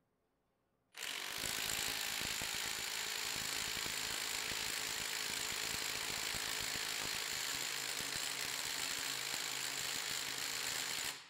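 Metabo HPT 18V triple-hammer impact driver (WH18DBDL2) hammering in reverse against a torque dyno. It starts about a second in, runs at full trigger as a steady, rapid rattle of impacts for about ten seconds, and stops just before the end.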